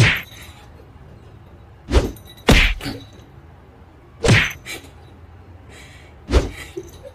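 A cat hitting a door with its paw: five separate thumps, two of them close together, the rest about two seconds apart.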